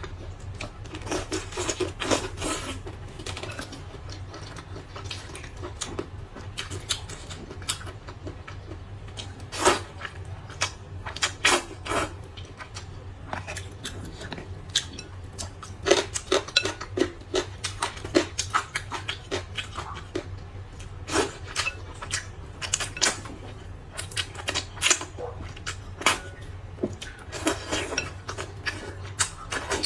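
Close-up eating sounds of a bowl of spicy rice noodles: irregular smacking, chewing and slurping, with utensils clicking against the bowl. A steady low hum runs underneath.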